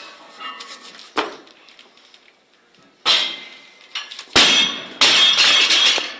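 Loaded barbell dropped to the floor: the plates hit with a loud clang and rattle, in a few separate impacts, the last one followed by about a second of clattering.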